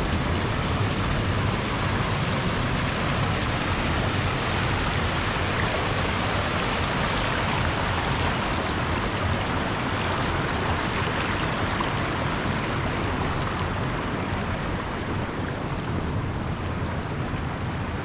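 Shallow river flowing over stones and riffles: a steady rushing of water.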